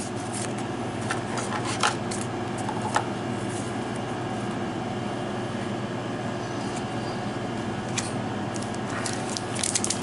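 Trading cards being handled and set down, a few light clicks and taps over a steady room hum. Near the end a foil booster pack starts to crinkle as it is picked up and opened.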